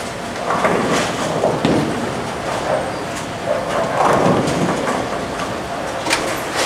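Bowling alley noise: bowling balls rumbling down the lanes and pins clattering, with a few sharp clacks, one about a second in and one near the end.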